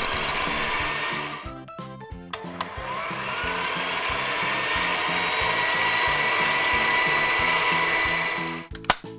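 Cartoon suction sound effect of a toy machine sucking up balls: a whirring rush that rises slightly in pitch. It comes in two stretches, a short one ending a second or so in and a longer one from about two and a half seconds until near the end, over children's background music with a steady beat.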